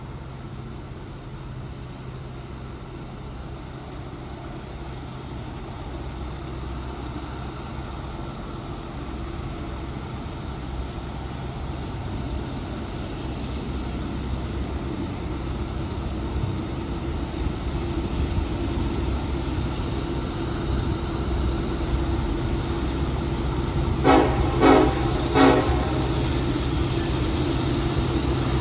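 Diesel freight locomotives running under load, the low engine drone growing steadily louder as the train approaches. About 24 seconds in, the locomotive horn sounds three short blasts.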